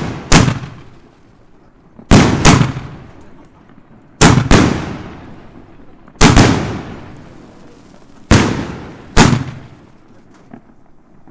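Consumer firework battery (cake) firing: loud bangs about every two seconds, several coming in close pairs, each trailing off over about a second.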